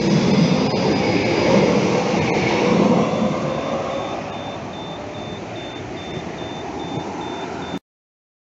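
Articulated low-floor tram passing close on its track, its running noise loudest over the first three seconds and fading as it pulls away. From about three seconds in, a high electronic crossing signal beeps about twice a second. The sound cuts off suddenly near the end.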